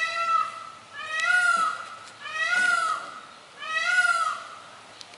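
Indian peafowl calling: four loud, cat-like calls about one every 1.3 seconds, each rising and then falling in pitch.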